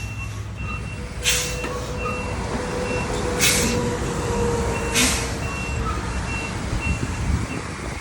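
Heavy truck's diesel engine running low and steady while a reversing beeper sounds in a regular string of short high beeps. Three short blasts of air hiss come about a second and a half to two seconds apart.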